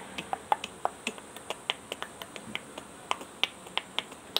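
Quick run of sharp mouth pops made by a boy with his hand cupped over his mouth, about five a second, each pop at a different pitch.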